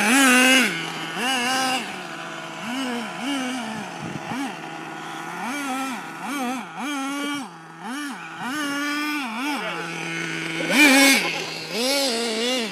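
Small nitro engine of an RC car idling and being revved in short blips over and over, its pitch rising and falling back to a steady idle each time. The loudest rev comes about eleven seconds in.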